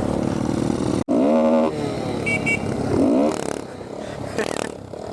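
Small motorcycle engines running and revving, the pitch rising and falling in short revs; the sound cuts off abruptly about a second in and picks up again.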